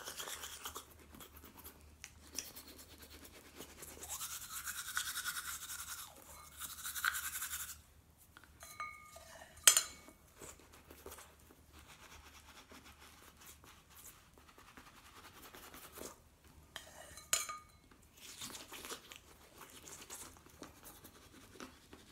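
Toothbrush packed with a baking-soda and hydrogen-peroxide paste scrubbing on teeth and gums in short spells, the longest a few seconds in. There are a couple of sharp clicks later on.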